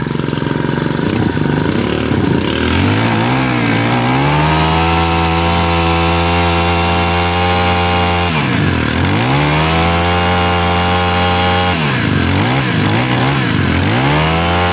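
Honda GX25 four-stroke brush cutter engine running smoothly. It idles at first, is revved up about three seconds in and held at high speed, then drops back to idle and revs up again about eight seconds in and twice more near the end.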